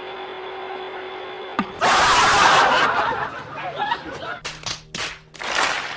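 Quiet room hum, then about two seconds in a sudden loud noisy burst gives way to laughing and snickering in several choppy bits, from an inserted comedy clip.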